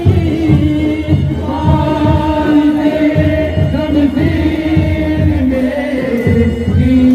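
Chanted singing with long, wavering held notes over a steady drum beat of about two beats a second.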